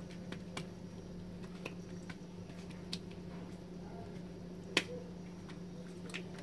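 Oiled hands patting and pressing msemen dough thin on a granite countertop: scattered soft sticky slaps and clicks, the sharpest a little under five seconds in, over a low steady hum.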